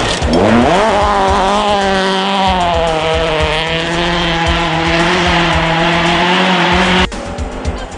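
Rally car engine revving hard, its note climbing sharply as the car accelerates past, then held at high revs as it carries on down the gravel stage. The sound cuts off abruptly about seven seconds in.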